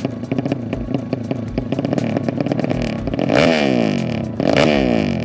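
Drag-race motorcycle engine running stationary with a fast, choppy idle. It is revved twice, about three and a half and four and a half seconds in, the pitch shooting up and falling straight back each time.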